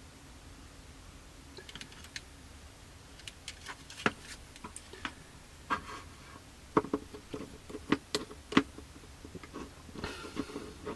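Scattered light clicks and taps, starting about a second and a half in, of a plastic model aircraft fuselage and metal tweezers being handled and set down on a cutting mat.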